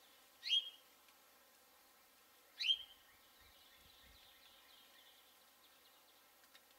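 Two loud, sharp bird calls about two seconds apart, each a quick upward-sweeping note, over faint rapid chirping from another bird.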